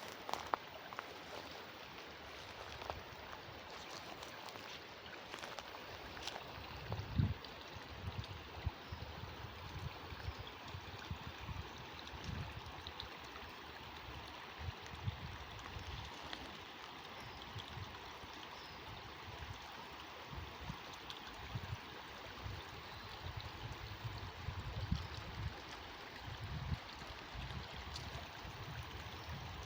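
Water running steadily along an old irrigation channel, with irregular low thuds and a few sharp clicks over it.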